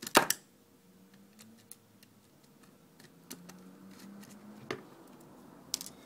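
Small cross-head screwdriver clicking against a plastic keypad housing while undoing a screw: one sharp click at the start, then a few faint scattered ticks.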